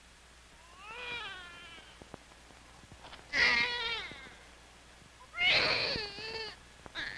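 Newborn baby boy crying in the minutes after birth: three thin, wavering cries, the last two loud, then a short one near the end.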